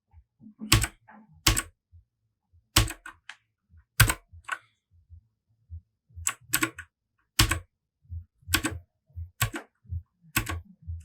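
Royal Kludge RK100 mechanical keyboard with clicky Gateron blue switches, single keys pressed one at a time: about ten sharp clicks spaced unevenly, roughly a second apart. These are the Fn and Insert keys being pressed to cycle the backlight colour.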